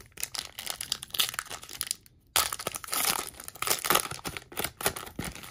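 Foil wrapper of a hockey card pack crinkling and tearing as it is ripped open by hand. It comes in two spells of dense crackling, with a short pause about two seconds in, and the second spell is louder.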